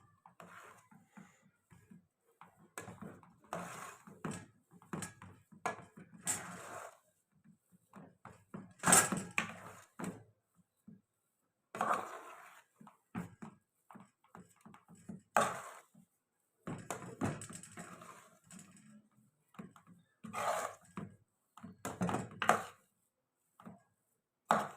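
Kitchen utensils and dishes being handled: irregular knocks, taps and clatter in a small room, the loudest knock about nine seconds in.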